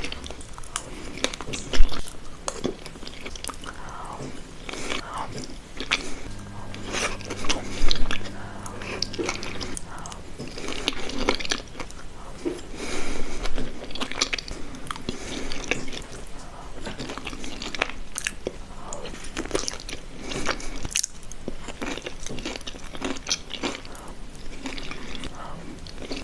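Close-miked eating sounds: biting and chewing with irregular crisp crunches, and two louder sharp knocks about 2 and 8 seconds in.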